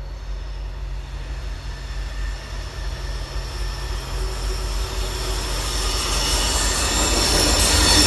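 Approaching freight train's diesel locomotive: a steady low engine rumble that grows louder, with the hiss and rattle of wheels on rail rising toward the end.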